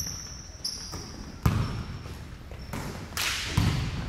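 Basketball bouncing on a hardwood gym floor a few times during play, with short high sneaker squeaks between the bounces.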